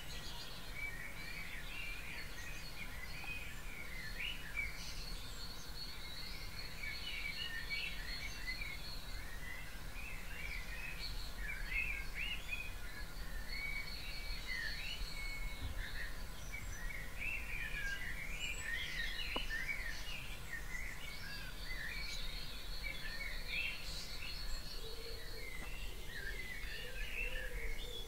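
Dawn chorus: several songbirds singing at once in quick, overlapping chirping phrases, with a thin high steady note that comes and goes, over a constant low background rumble.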